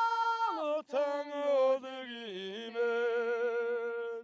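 A solo voice singing unaccompanied, holding long notes that step up and down between pitches, with a short break for breath about a second in.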